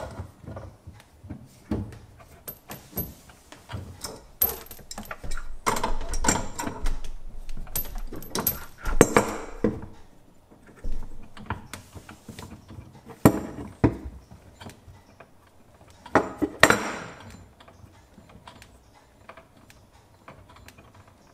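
Adjustable wrench clinking and knocking against the metal fittings of an under-sink shutoff valve as the cold-water supply line's nut is loosened and pulled off, in irregular clicks with a few louder clatters.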